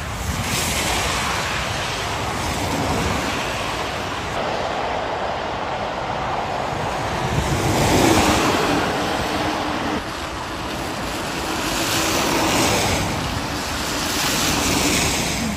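Steady rushing noise of wind and tyre hiss on a rain-wet motorway, swelling and fading several times.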